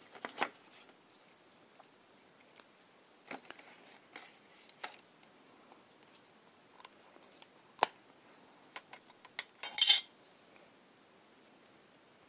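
Wooden rubber stamps and a small plastic ink pad handled on a craft table: scattered light knocks and clicks, one sharp click about two-thirds in, then a short louder clatter of clicks.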